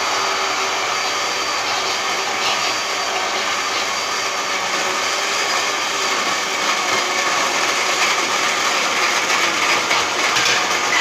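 Countertop electric blender running steadily, its motor whirring at a constant speed as it blends mango and milk into a milkshake.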